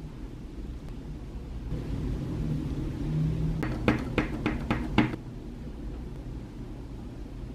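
Wooden rubber stamp tapped several times onto an ink pad, about six quick dull knocks a little past halfway.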